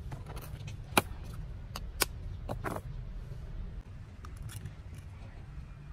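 A chicken egg being cracked: two sharp taps about a second apart, then softer clicks and crackles of the shell as it is pried open. A low steady rumble runs underneath.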